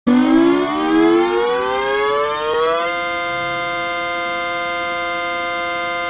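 The New York Yankees siren used as a hockey goal horn, signalling a goal: it winds up with its pitch rising for about three seconds, then holds a steady wail.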